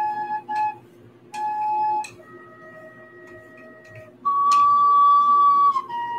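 Homemade copper-pipe recorder playing a slow tune of held notes: two short higher notes at the start, a quieter lower note in the middle, then a loud long high note about four seconds in that slides down a little into another held note near the end.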